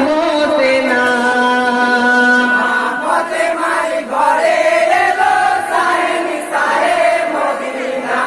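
A group of voices chanting a Bengali jari-morsiya lament in unison: a long held note, then a wavering melody from about three seconds in.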